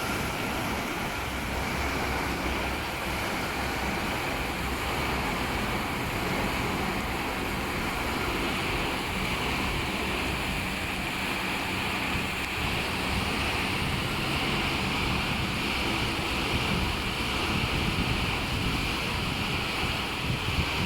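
CB-730 rollover bus and truck washing machine running: a steady rush of water spray with motor rumble underneath, the hissing spray growing a little louder and brighter about halfway through.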